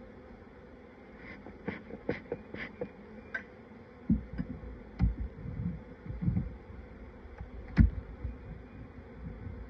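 Honeybees buzzing over an open hive, with sharp clicks and then several low knocks as a metal hive tool pries at the wooden frames; the loudest knock comes near the end.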